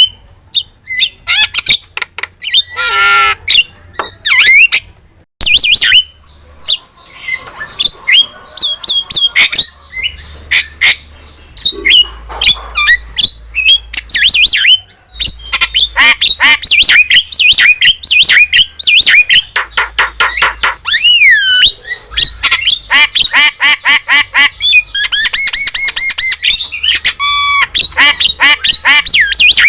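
A starling (jalak) singing hard: a fast, nearly unbroken string of loud whistles, chirps and harsh squawks, with a few swooping whistles and a buzzing rattle late on.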